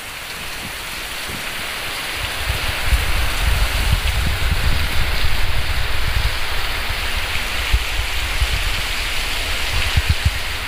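Heavy downpour: a steady hiss of rain pelting the road and trees, swelling over the first few seconds, with a low, gusty rumble of strong wind on the microphone from about two seconds in.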